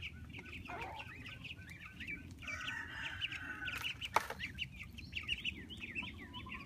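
Chickens clucking and chirping in quick, repeated short calls, with a single sharp knock about four seconds in.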